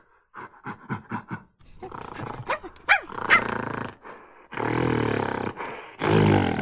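Monkey calling: a quick series of short panting grunts, a few shrill calls that slide in pitch about three seconds in, then two longer low, rough calls near the end.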